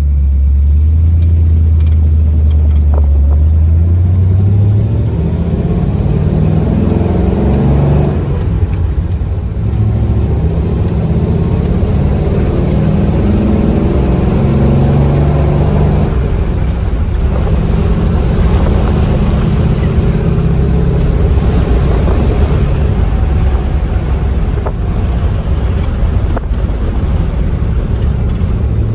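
A 1940s car engine, running steadily at first, then pulling away and climbing in pitch with the revs. The pitch falls back sharply about 8 and 16 seconds in, as at gear changes.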